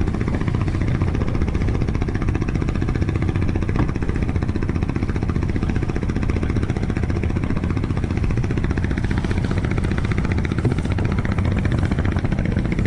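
A boat's engine running steadily with a fast, even pulse.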